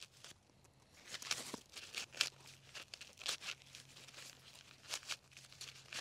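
Dry, papery corn husks being peeled back by hand from a mature rainbow corn cob: a quick run of irregular rustling, tearing crackles.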